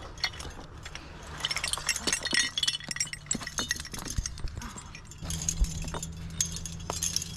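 Rock-climbing gear racked on a harness (metal carabiners, cams and hexes) clinking and jangling as the climber moves over the rock. The clinks come in two spells of quick, irregular jingles, the first about a second in, the second in the last couple of seconds.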